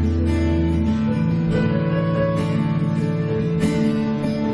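Worship music with a strummed acoustic guitar over sustained chords; a few strums land about a second apart, and a low bass note fades out about a second in.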